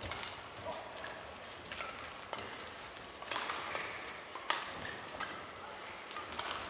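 Badminton doubles rally: rackets striking the shuttlecock in a string of sharp hits, the loudest about two-thirds of the way through, with brief squeaks of shoes on the court floor between them.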